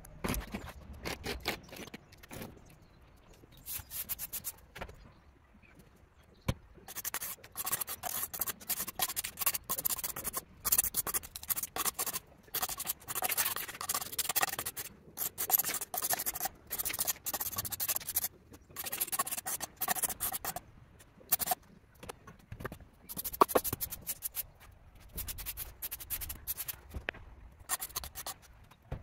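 Repeated scraping strokes of a hand tool working over the ground during garden cleanup: a few scattered strokes at first, then a busy, irregular run of them from about seven seconds in.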